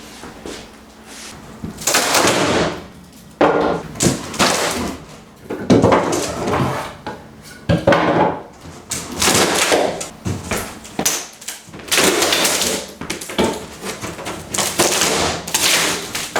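Kitchen base cabinet and countertop being pried and wrenched loose during demolition: irregular bursts of scraping, creaking wood and knocks, each lasting up to a couple of seconds.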